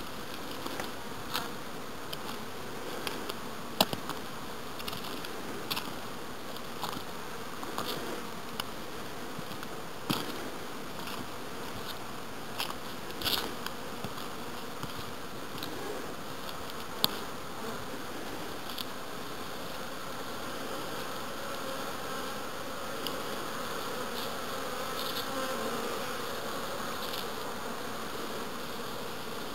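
Honey bees buzzing in flight around the hives, a steady wavering hum, with scattered sharp clicks that are the loudest moments.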